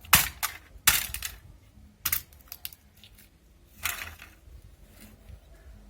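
Scrap metal being handled: a few sharp clinks and knocks at the start, about a second in and about two seconds in, then a softer rattle near four seconds.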